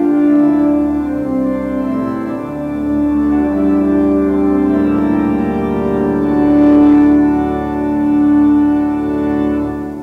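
Church organ playing sustained chords in slow, held steps, the closing bars of the entrance hymn; the final chord fades away at the end.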